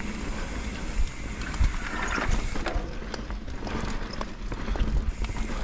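Mountain bike rolling down a rough dirt trail: the frame and chain rattle and knock over bumps, above a steady low rumble.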